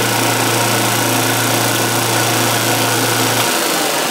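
Flatmaster drum sander running steadily while a pine board is fed across its sandpaper-covered drum. The low hum drops away about three and a half seconds in while the rest of the machine noise carries on.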